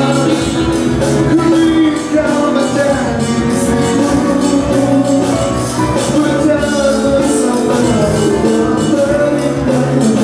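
Live band music with a man singing lead through a microphone and PA, over a steady beat.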